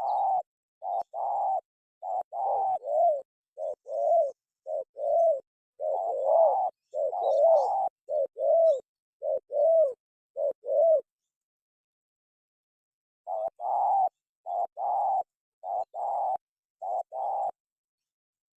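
Spotted dove cooing: a long run of short, rounded coos, each about half a second, with a pause of about two seconds about two-thirds of the way through before another run of six or seven coos.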